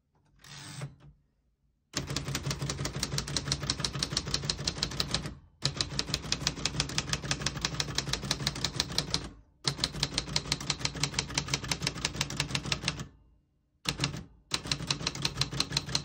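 1952 Royal Quiet De Luxe manual portable typewriter being typed on: its type bars strike the platen in fast, even runs of about five keystrokes a second. The typing starts about two seconds in and goes in stretches of a few seconds, broken by short pauses.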